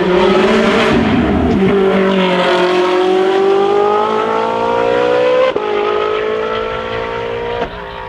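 Hillclimb racing car accelerating hard past and up the road. The engine's pitch climbs steadily, then drops sharply at an upshift about five and a half seconds in and again near the end.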